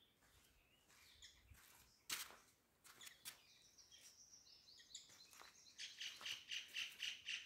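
Small bird chirping, faint at first and then a quick, regular run of high chirps, about four or five a second, getting louder near the end. A few sharp clicks or taps come about two and three seconds in.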